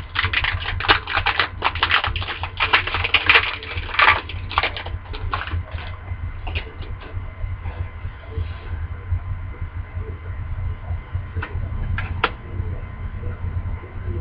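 A hockey card pack wrapper being torn open and crinkled, a dense run of crackling for about the first four seconds. After that come only a few scattered clicks as the cards are handled, over a steady low hum.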